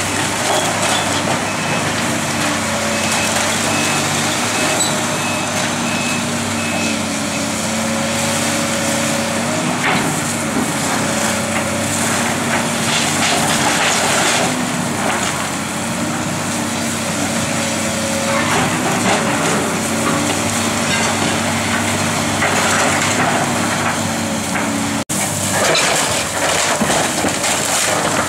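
Hydraulic excavator running steadily with a held engine and hydraulic tone while it tears down a brick and timber building, the wreckage crunching, cracking and falling in irregular crashes. The sound cuts out briefly near the end.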